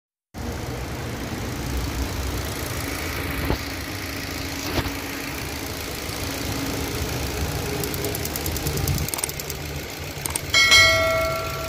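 Jetour X70 engine idling with the canister purge valve ticking, a noise loud enough to be taken as abnormal: the sign of a faulty purge valve that needs replacing. A short pitched tone sounds near the end.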